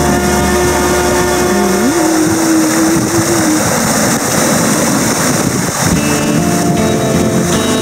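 Loud, steady rushing noise like wind under background music. A held note slides up about two seconds in and the music thins out, then the music picks up again about six seconds in.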